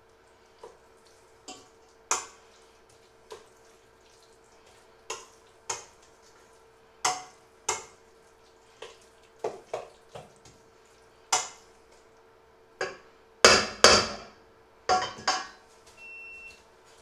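A spoon clinking and knocking against a stainless steel mixing bowl while thick batter is stirred, in irregular strokes, with the loudest clatter a little past the middle.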